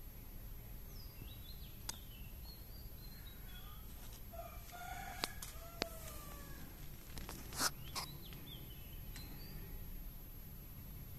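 Outdoor background with birds calling: short chirps throughout and a longer pitched call in the middle. Several sharp clicks break through, the loudest a short knock about two-thirds of the way in.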